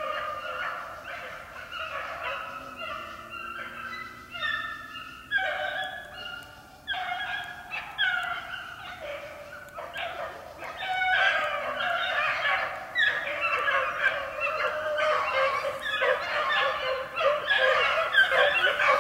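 Pack of young beagles baying in chorus as they run a rabbit, many voices overlapping; the cry grows louder and denser about halfway through.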